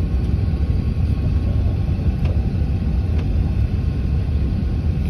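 Airliner cabin noise on the landing approach: the steady low rumble of engines and airflow at a window seat over the wing. Two faint clicks come about two and three seconds in.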